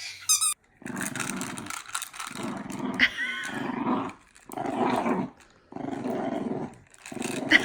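A dog growling in a string of growls, each about a second long with short breaks between them.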